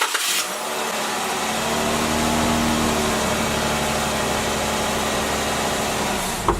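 Jeep Wrangler engine starting and settling into a steady idle.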